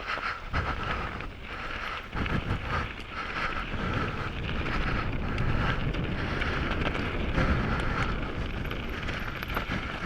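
Mountain bike rattling and rumbling over a rocky trail, with wind buffeting the microphone. The rider's heavy breathing, right against the mic, swells and fades about once a second.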